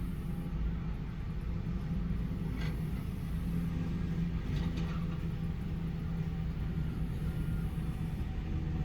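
Diesel engines of an excavator and dump trucks at work, running with a steady low rumble, with a couple of faint knocks about two and a half and five seconds in.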